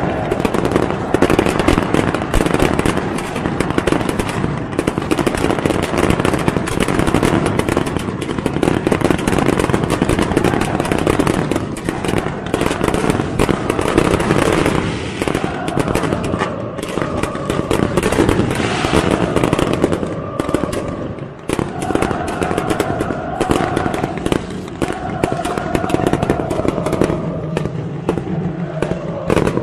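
Fireworks and pyrotechnics crackling and banging in rapid, dense succession. From about halfway, a crowd's sustained chanting rises over the crackle.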